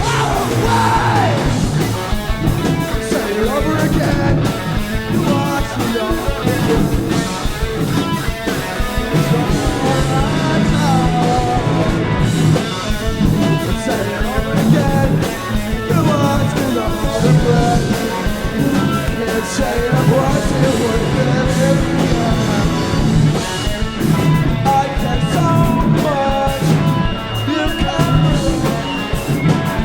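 Rock band playing live, with electric guitar, drums and a sung vocal line.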